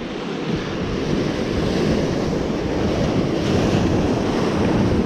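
Ocean surf breaking and washing over shoreline rocks, with wind buffeting the microphone. The rush swells over the first couple of seconds, then holds steady.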